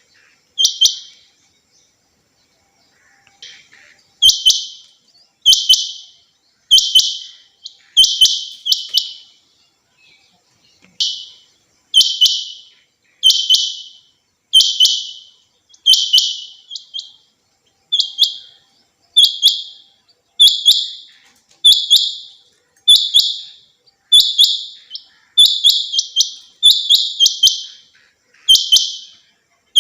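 Female rain quail calling: short, high notes repeated roughly once a second, each with a sharp click at its start, coming in quicker pairs near the end.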